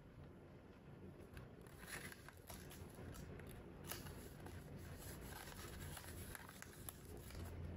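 Faint rustling and creasing of origami paper being folded and pressed by hand, with a few soft clicks and crinkles, clearest about two and four seconds in.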